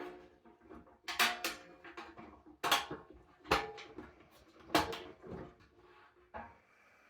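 Sheet-steel barbecue parts clanking as they are handled and fitted together: about five sharp metal knocks, each with a brief ring.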